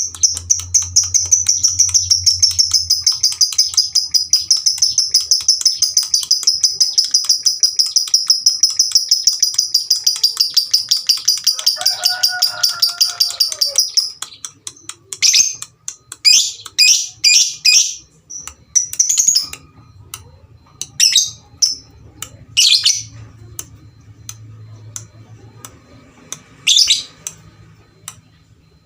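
Lovebird calling: a long, very fast trill of rapid high ticks for about fourteen seconds, then breaking off into separate sharp chirps and squawks.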